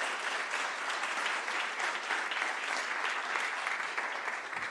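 Conference audience applauding steadily, a dense patter of many hands clapping, which begins to die away near the end.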